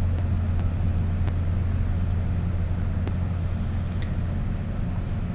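Steady low hum of the recording's background noise, with a faint computer mouse click about a second in and a couple more later.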